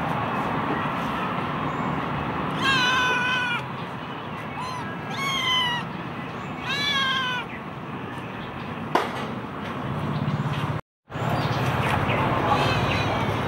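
Kitten meowing three times in high, thin calls, each one falling in pitch, over steady background noise. There is a single sharp click about nine seconds in.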